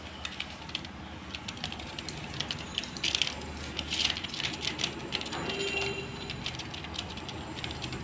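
Budgerigars in a wire cage making irregular small clicks and scratches as they move about and nibble at a leaf held through the bars, with denser bursts of clicking about three and four seconds in.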